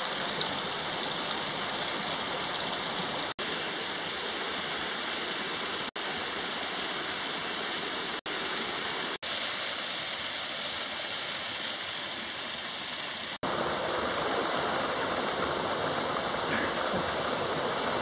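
A small waterfall cascading over rocks into a pool: a steady rush of falling water. The sound cuts out briefly several times.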